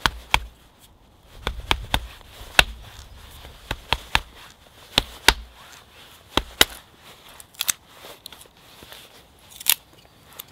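Knife blade stabbed repeatedly down into a stick of wood, an irregular run of sharp knocks and cracks as the wood splits into thin kindling pieces, the loudest crack near the end.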